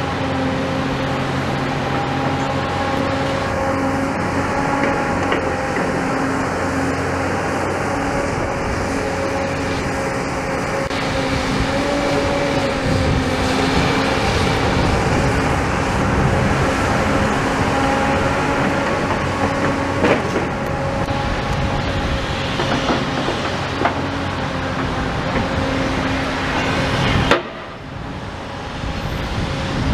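Demolition excavator's diesel engine running steadily with a hydraulic whine as its grab tears at brickwork, with crunching debris and a sharp knock about two-thirds of the way through and another near the end.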